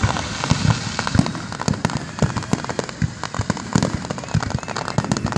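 Aerial fireworks going off in quick succession: many sharp bangs several times a second, some with deep thumps, over a continuous crackle.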